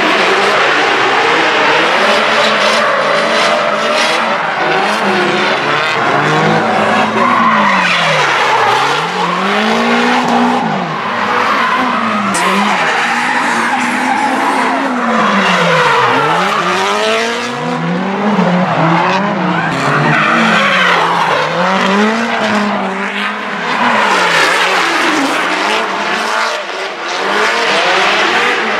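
Drift cars sliding with their tyres squealing and engines revving hard, the engine pitch rising and falling over and over as the throttle is worked through the slide.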